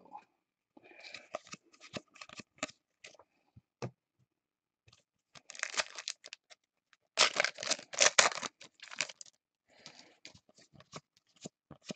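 Trading cards and foil pack wrappers being handled: scattered light clicks, then two louder spells of crinkly tearing and rustling about halfway through.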